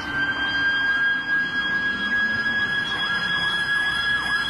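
Toy fire truck's electronic siren sounding: a steady high tone under a wailing glide that repeats about twice a second and grows louder in the second half.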